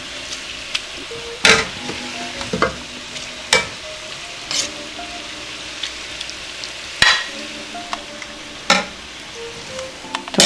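Dumplings sizzling in hot oil in a skillet, a steady hiss, while a serving spoon clinks and scrapes sharply against the pan and plate about six times as vegetables are dished out.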